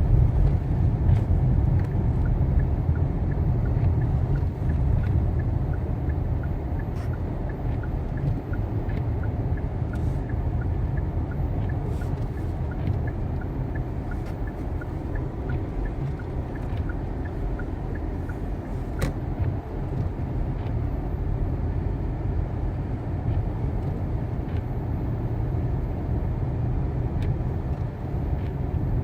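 A car driving on snowy roads: a steady low rumble of engine and tyre noise. A faint, regular ticking runs through the first half or so.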